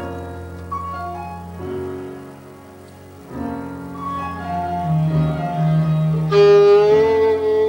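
Backing track of slow, sustained chords over a held low bass note, with a melody line moving above. About six seconds in, a violin comes in loud over it with a long held note.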